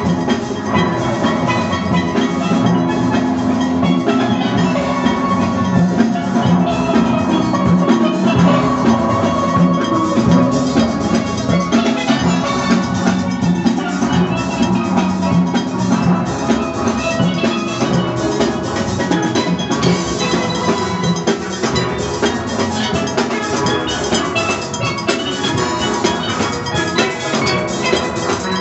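Steel band playing: many steel pans sounding melody and chords over a steady drum and percussion beat, without a break.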